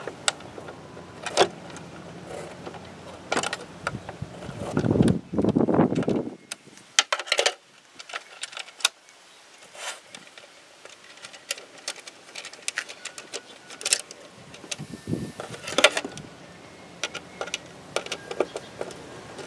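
Hard plastic air filter housing being handled and fitted under the hood, with scattered clicks and knocks of plastic parts and a screwdriver. A longer scraping rustle comes about five seconds in.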